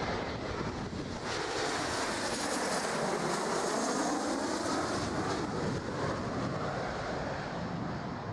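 Jet engines of a low-flying twin-engine Flybe Embraer E-Jet passing overhead on final approach. The noise swells to its loudest about four seconds in as the aircraft goes over, then eases as it moves away. Wind buffets the microphone throughout.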